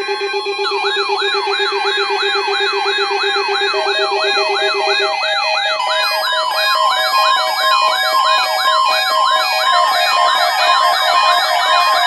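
Electronic emergency-alert signal made of several layered tones. A rapidly pulsing low tone runs for about the first five seconds under many repeating siren-like wails, about two per second. Steady and beeping tones pile on top and the mix grows denser and a little louder after about six seconds.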